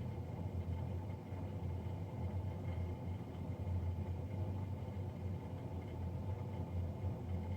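Navien NCB-240 combi boiler's fan running with a steady low drone and fainter high tones above it, the loud fan noise the owner is complaining of.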